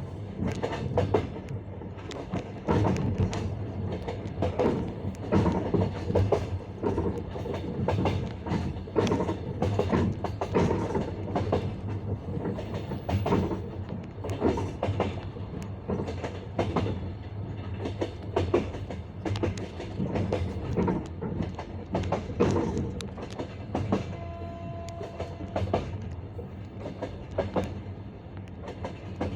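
Passenger coach wheels knocking over the rail joints of jointed (bolted) track: the classic clickety-clack, with groups of knocks about a second apart over a steady rumble of the running train.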